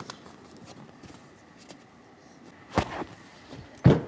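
Two dull thumps about a second apart near the end, the second louder, as a re-covered car seat cushion is turned over and set down on a cloth-covered table; a single click at the start.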